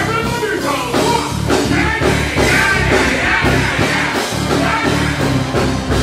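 Dancehall music played loud through a stage sound system, with a deejay's voice chanting over a steady beat into a microphone.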